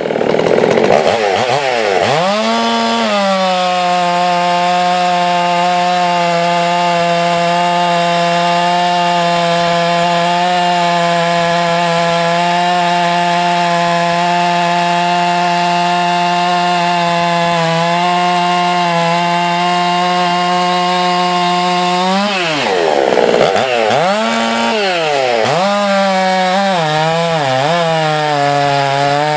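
Modified Husqvarna 390XP chainsaw (pop-up piston, advanced ignition timing, unlimited coil, modded muffler, unported cylinder) running flat out while cutting through a large log. Its pitch swings up and down in the first few seconds, then holds steady through a long stretch of cutting. About 22 seconds in it sweeps up and down again, then settles a little lower and wavers as it pulls through the wood.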